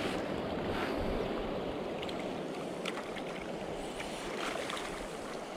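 River water rushing and swirling past, a steady noise that eases a little after a few seconds, with some wind on the microphone.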